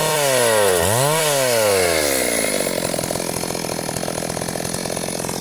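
Petrol chainsaw engine revving up and down twice, then dropping back to a steady, buzzing idle about two seconds in.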